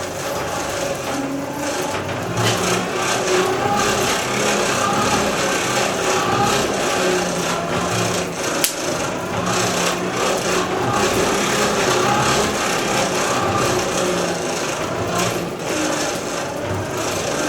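Steel knife blade, forged from an old file, being shaped by abrasion: a continuous rasping, scraping sound with a single sharp click near the middle.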